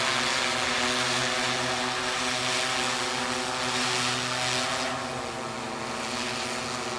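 Delivery drone hovering overhead while it lowers a package on a tether, its propellers giving a steady hum of several even tones over a rushing hiss, a little quieter from about five seconds in.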